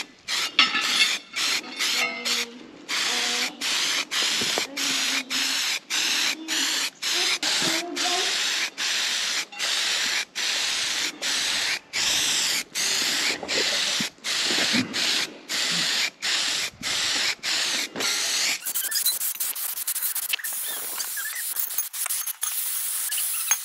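Spray paint being applied to steel in quick short passes, a hiss switched on and off about twice a second. Near the end it becomes one long continuous spray.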